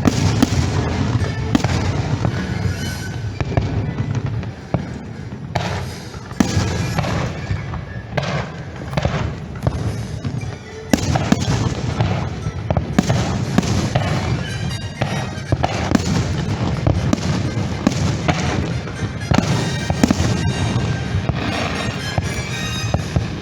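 Fireworks display: a continuous run of bangs and booming shell bursts, with stretches of rapid crackling, over show music from loudspeakers.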